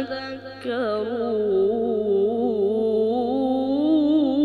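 A boy's voice reciting the Quran in melodic tajwid style, drawing one syllable out into a long, wavering, ornamented note after a brief break near the start.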